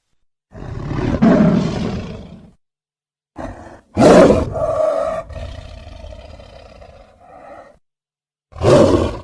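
Made-up Smilodon (sabre-toothed cat) sound effect: a series of big-cat roars with gaps between them. The loudest starts about four seconds in and trails off over some three seconds, and another begins near the end.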